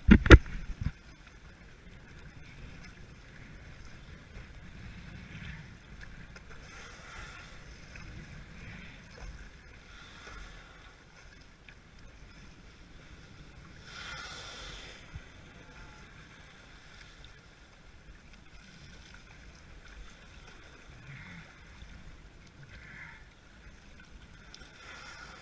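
Sea water lapping and splashing around a stand-up paddleboard, faint and steady, with brief swells. A sharp knock right at the start.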